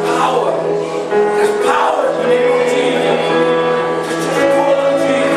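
Gospel worship music with a choir singing over sustained instrumental chords.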